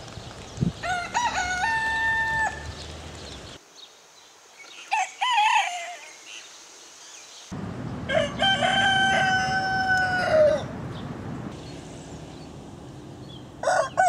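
Roosters crowing: one crow about a second in, a short crow around five seconds, a long held crow from about eight seconds, and another beginning at the very end. The background changes abruptly between crows, as separate recordings spliced together.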